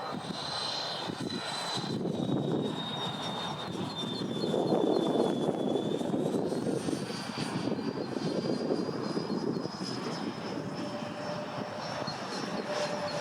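Freewing MiG-29 model jet's twin 80 mm electric ducted fans whining in flight. The high whine sags a little in pitch, then climbs about six seconds in, with the rushing sound swelling loudest near the middle.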